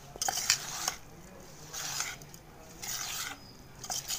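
A metal spoon mixing moth bean chaat (beans, chopped potato, tomato and onion) in a stainless steel bowl: scraping stir strokes about once a second, with a few clinks of spoon against bowl in the first second.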